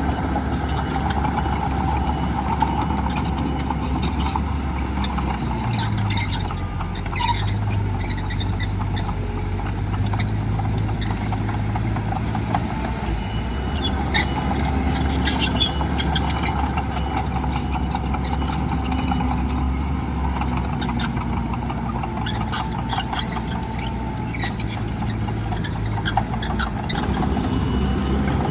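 Heavy diesel earthmoving machinery running under load, the engine's pitch stepping up and down as it works, with scattered clanks and rattles.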